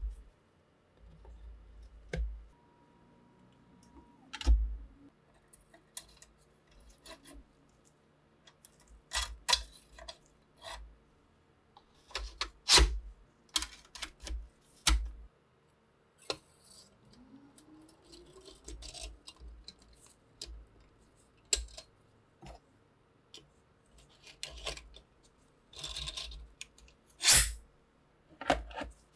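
Rusty steel parts of an SVT-40 rifle being handled and taken apart by hand: scattered small metallic clicks and clinks, with a few sharper knocks spread through.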